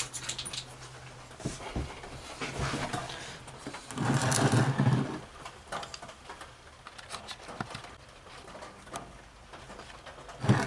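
Handling noises of a metal engine crankcase side cover being turned over on a wooden floor: scattered light clicks and knocks, a louder scraping rustle about four seconds in, and a sharp click near the end.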